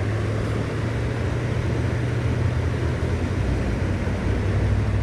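Steady rushing of creek water, a constant low rumble with a hiss above it.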